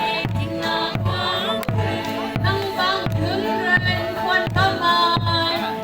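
Song with several singing voices over a steady beat, with a low pulse about three times every two seconds.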